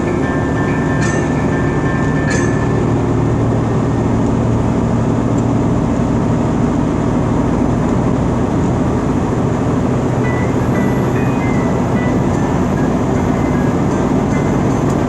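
Steady engine and road drone inside a vehicle at highway speed, with a low hum, and a few sharp clicks in the first couple of seconds.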